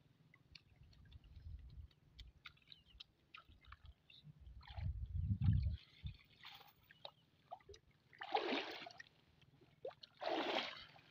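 Water sloshing, trickling and dripping as a wet cast net is hauled up and gathered out of a shallow river, with two louder splashes a little past halfway and near the end. Dull low thumps sound in the first half, the loudest about five seconds in.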